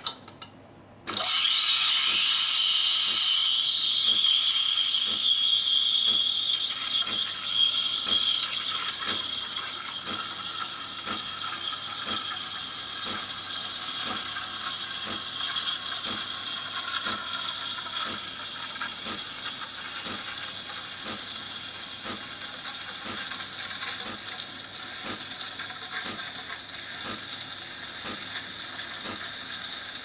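De'Longhi Dedica EC785 steam wand frothing milk in a stainless steel pitcher: a loud hiss starts abruptly about a second in, high and bright at first, then settles lower with a gurgling, tearing texture as the milk is stretched and rolled. A regular ticking runs under the hiss.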